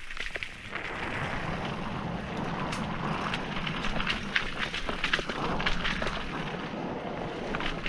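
Mountain bike riding fast downhill over a rocky dirt trail: tyres crunching over loose stones and the bike rattling with frequent sharp knocks over the bumps.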